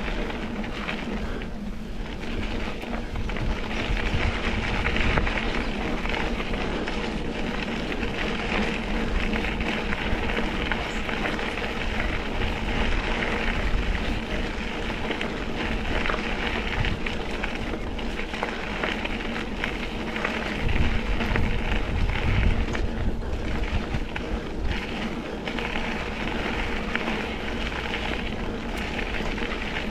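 Mountain bike rolling along a dirt trail: steady tyre noise and crackling over the ground, with bumps and low buffeting from wind on the microphone.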